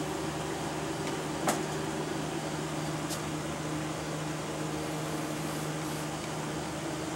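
Steady hum of electric fans running, with a sharp click about a second and a half in and a fainter one a little later.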